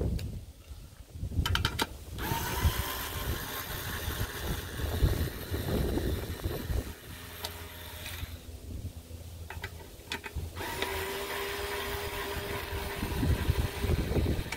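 A power driver on a long socket extension runs twice, each time for about four seconds with a steady motor whine, backing out the rear fan-cover bolts of a Briggs & Stratton mower engine. A few sharp clicks come just before each run.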